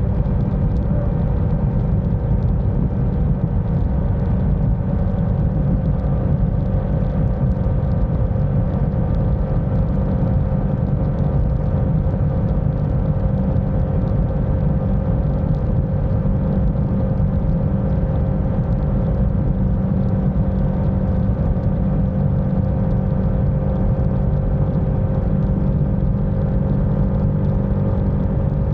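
Motorcycle riding at a steady cruising speed: wind buffeting the microphone in a low, even rumble, with the engine's steady hum faintly underneath.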